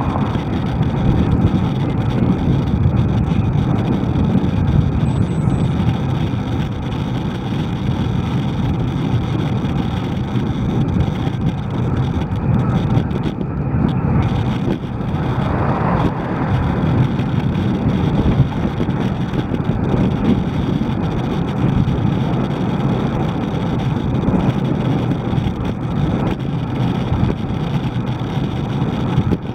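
Steady wind noise on the microphone of a moving camera, mixed with road and traffic noise, with a brief swell about halfway through.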